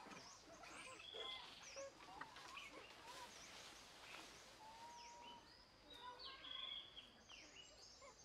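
Faint birdsong: many quick, high chirps and a few short, steady whistles from several birds, over a faint background hiss.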